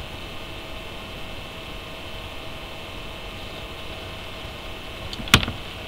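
Steady electrical hum and hiss of the recording setup, with one sharp click a little over five seconds in.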